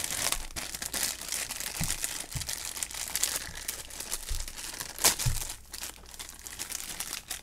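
Foil blind bag crinkling and rustling as it is handled and torn open to get a small vinyl figure out, with a few short knocks, the sharpest about five seconds in.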